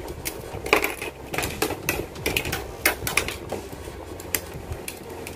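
Hobby side cutters snipping plastic model-kit parts off their runners: an irregular run of sharp plastic clicks and snaps, thickest in the first three seconds or so, then sparser.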